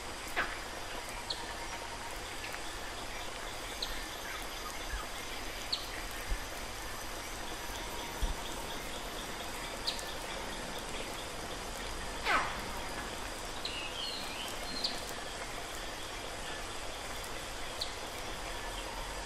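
Steady hiss of running water through a planted indoor stream enclosure. Over it come a few short descending bird whistles, the loudest about twelve seconds in, and a brief twittering a little later.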